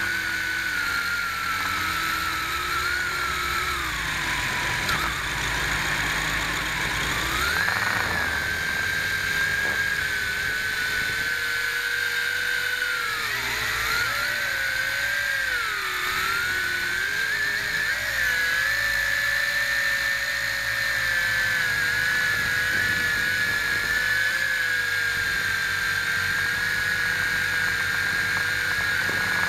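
Electric motors and propellers of a small radio-controlled drone, picked up by its onboard camera: a steady high whine whose pitch dips and rises with the throttle, sagging about 4 s in and wavering around 13 to 16 s before settling.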